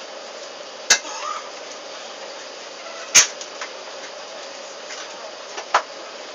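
Steady cabin hum inside an Airbus A380 taxiing after landing, broken by three sharp clicks or clatters: about a second in, about three seconds in (the loudest) and near the end.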